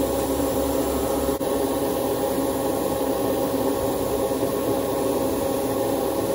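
Steady rushing air noise of an airbrush spraying gloss undercoat onto small plastic model parts, with a brief dip about one and a half seconds in.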